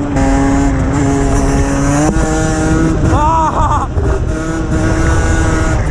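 Derbi Senda 50cc two-stroke single, running an Enox expansion-chamber exhaust and unrestricted CDI, held at high revs under full throttle in fifth gear for a no-clutch wheelie. The pitch steps up slightly about two seconds in as the front wheel lifts. A short shout from the rider comes about three seconds in.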